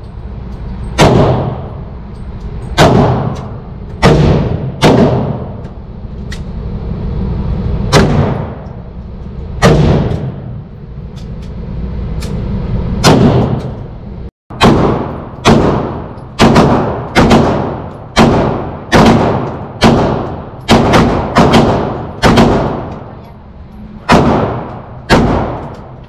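Gunshots echoing in an indoor shooting range. At first they come singly at irregular intervals. After about fourteen seconds they come in a quicker run of about two shots a second.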